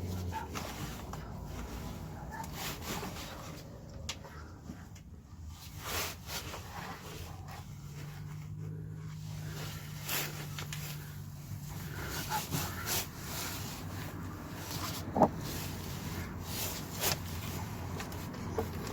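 Hand-operated oil transfer pump being worked to fill a Mercedes Vito's gearbox through the fill plug: scattered clicks, knocks and squeaks from the pump and bottle, with one sharper knock near the end, over a low steady hum.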